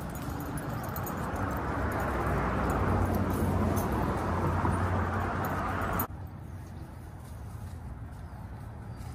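A vehicle passing on the road beside the sidewalk, its tyre and engine noise swelling and then fading, cut off abruptly about six seconds in. After that, quieter street background with faint clicking from the dogs' leashes and tags.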